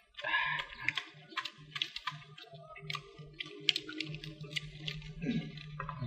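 Irregular crisp clicks and crunches of people chewing crisp-grilled small birds (chim ri), bones and all, with herbs.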